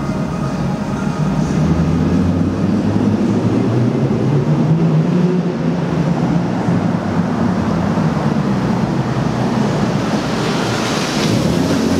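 Lexus GS300's inline-six engine running through its custom-fabricated axle-back exhaust as the car drives, the revs rising and falling several times. A brief hiss comes near the end.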